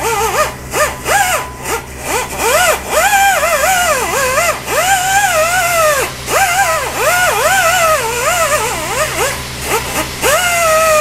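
A dog whining and howling in a run of long, wavering cries that rise and fall, over the steady buzz of an AC TIG welder welding a crack in an aluminium alloy rim.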